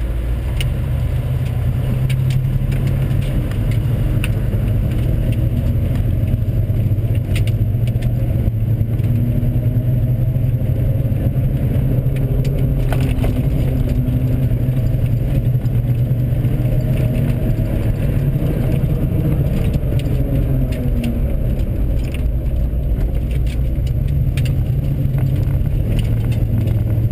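Pickup truck driving, heard from inside the cab: steady engine and road noise. About halfway through, the engine note rises and falls as the truck speeds up and slows down. Light clicks and rattles sound throughout.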